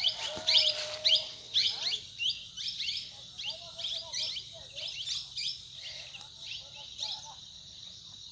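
Birds chirping in quick, repeated short calls that thin out and grow fainter over several seconds, over a faint steady high-pitched tone.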